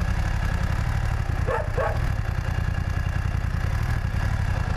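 BMW F900's parallel-twin engine running steadily as the bike rolls slowly. About one and a half seconds in, a dog barks twice.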